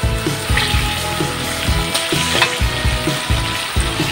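Beans sizzling in hot oil in a metal wok, stirred with a metal spatula that now and then scrapes against the pan.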